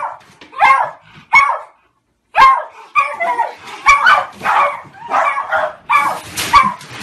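A dog barking repeatedly: three barks, a pause of about a second, then a quicker run of barks, about two a second.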